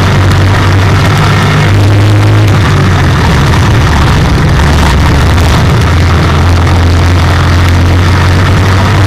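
IMCA stock car's V8 engine running hard under race load, heard from inside the cockpit, very loud. Its note rises and falls a few times with the throttle through the turns.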